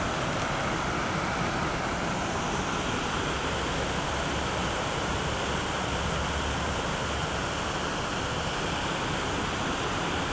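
Steady rush of a rocky stream cascading as whitewater into a pool.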